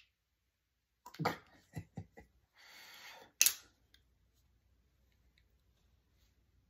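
A few short clicks and knocks from hands handling a round neodymium fishing magnet and its metal fittings, then a brief scraping sound and one sharp click about three and a half seconds in.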